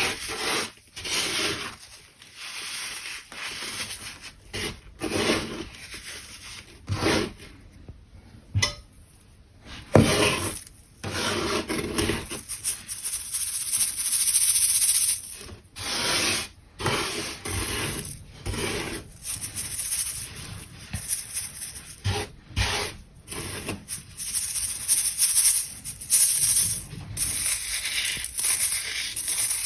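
Dry, crunchy baking soda being crushed and rubbed, giving irregular grainy crunching and scraping strokes with short pauses between them.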